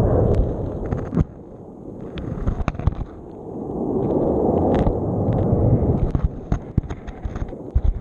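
Underwater surge of sea water heard through a GoPro housing lying on the sea bed: a low rush that swells and fades twice, with many sharp clicks and knocks as the camera scrapes and tumbles along the bottom.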